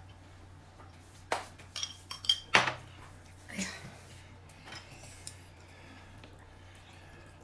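Tableware clinking as people eat: a quick run of sharp clinks of utensils against dishes, loudest about two and a half seconds in, then a few fainter knocks.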